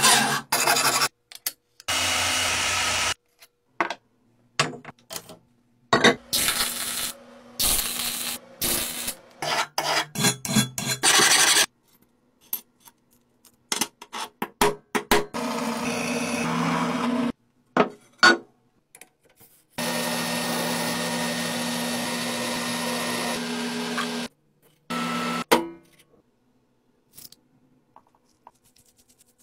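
Metalworking sounds in short separate spells: steel being rubbed, filed and cut by tools, including a few seconds of steady machine cutting with a low hum. Between these come choppy scrapes and light clicks of steel parts being handled. The last few seconds hold only faint soft ticks.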